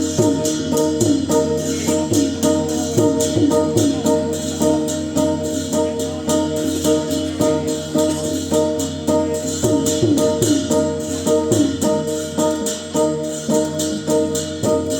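Northern Thai (Lanna) traditional ensemble music for a fon jeng dance. A held drone and a wavering melodic line run over fast, steady cymbal and drum strokes.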